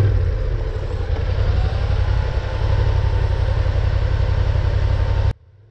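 Yamaha Ténéré adventure motorcycle being ridden on a gravel road: steady engine and road noise heard from the bike's own camera, cutting off abruptly about five seconds in.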